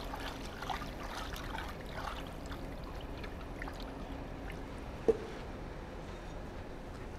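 Water trickling and sloshing in a wooden slack tub as a freshly oil-quenched steel chisel is swirled in it with tongs to rinse off the quench oil, with small splashes and clinks during the first couple of seconds. A single sharp knock about five seconds in.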